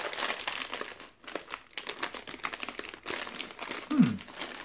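Clear plastic snack bag crinkling as it is handled and worked open by hand, in several rustling bursts with a short pause after about a second. Near the end a brief voice sound falling in pitch, the loudest moment.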